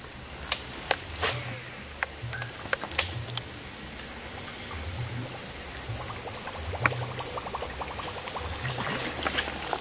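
Steady high-pitched insect drone, typical of forest cicadas, swelling up over the first second and then holding. Scattered sharp clicks, a quick run of ticks around seven to eight seconds in, and low muffled thumps sit under it.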